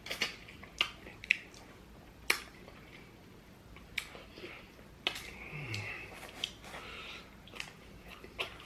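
Close-miked chewing, with sharp wet mouth smacks and crunches at irregular intervals. A brief falling "mm" hum comes a little past halfway.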